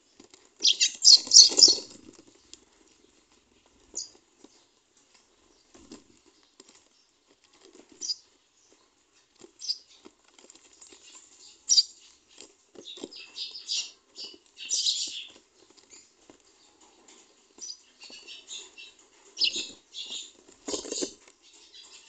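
Scratchy scribbling of a coloured pencil and a felt-tip marker colouring on paper, in irregular bursts of quick back-and-forth strokes. The loudest burst comes about a second in.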